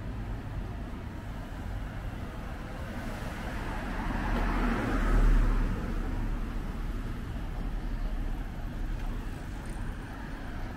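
A car passing by: engine and tyre noise swell to a peak about five seconds in, then fade, over a steady low traffic rumble.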